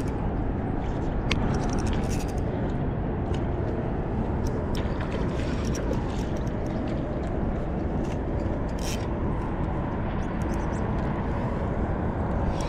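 Steady low outdoor rumble, with scattered small clicks and ticks from a spinning reel and rod being handled while a hooked trout is played.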